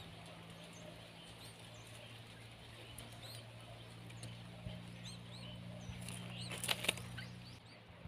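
Yellow-vented bulbul taking off from its nest: a brief flurry of wingbeats and rustling of palm leaves about three-quarters of the way through, the loudest sound. Thin, short high chirps from small birds come throughout, over a steady low hum.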